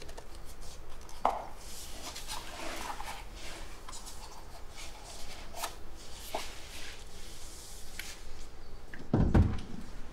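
Soft rustling and light clicks of close handling, with a louder dull thump about nine seconds in.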